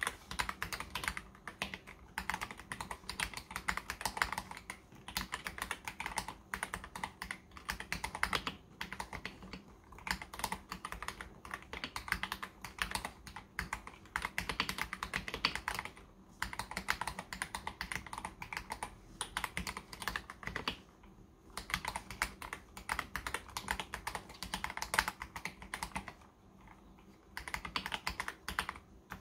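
Typing on a KBD67 Lite R3 mechanical keyboard fitted with stock, unlubricated Akko CS Jelly Blue light tactile switches: a fast run of keystrokes with short pauses a few times.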